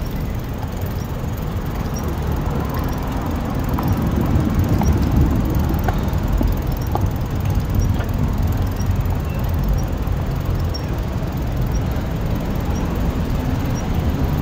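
Steady low rumble of a bicycle riding along a concrete city sidewalk: tyre and wind noise, with street traffic behind it. A faint high tick repeats at an even pace, a little under a second apart.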